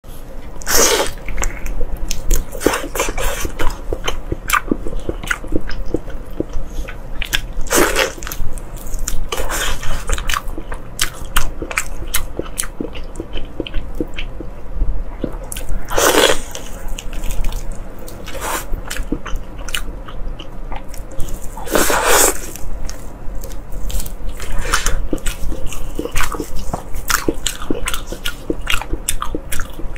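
Close-miked eating: bites into fried food and chewing, with many quick wet clicks and smacks and a handful of louder crunchy bites spread through.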